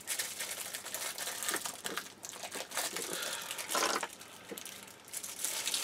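Clear plastic packaging bag crinkling and rustling as it is handled, with a louder rustle about four seconds in.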